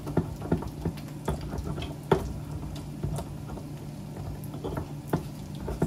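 Chicken taquitos frying in oil: irregular pops and clicks over a steady low hum.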